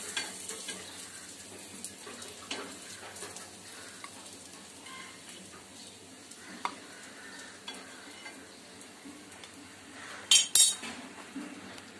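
Faint steady sizzle of chicken kababs frying in oil, with light clicks of utensils against a plate or pan. About ten seconds in come two sharp, loud clatters of metal utensils, close together.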